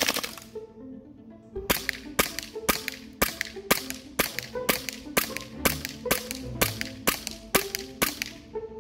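A VFC Glock 18 green-gas blowback airsoft pistol firing. A short rapid burst comes at the very start, then a steady string of about fourteen single shots, about two a second, each a sharp crack.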